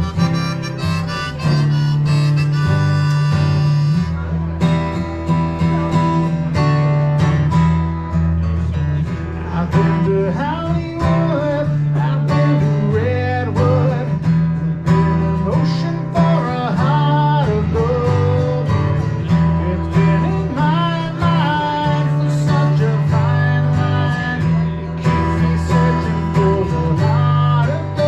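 Instrumental music: a harmonica melody over acoustic guitar and a steady bass, with no singing.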